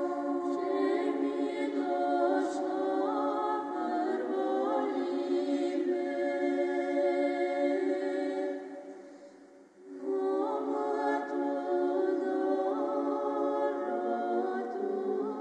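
Background music of a choir singing slow, held chords without instruments, fading briefly to near silence about nine seconds in, then starting again.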